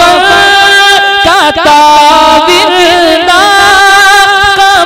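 A man's voice singing a naat into a microphone, without instruments, drawing out long held, ornamented notes. There is a brief break about one and a half seconds in.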